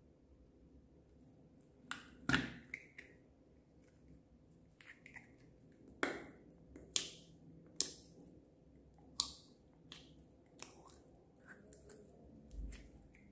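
Hands squeezing sticky slime out of a thin plastic cup: irregular sharp pops and crackles of the slime and the cup, the loudest about two seconds in, with a cluster of others a few seconds later.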